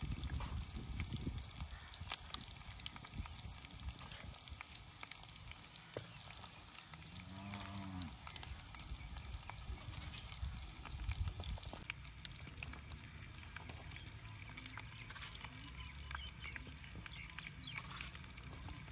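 A cow moos once, a single call rising and falling in pitch about seven seconds in. Under it is the faint sizzle of chicken frying in the karahi, with scattered clinks as the excess oil is spooned out.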